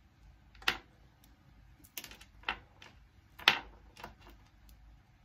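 Several irregular sharp clicks and taps from small objects being handled and set down on a hard surface, the loudest about three and a half seconds in.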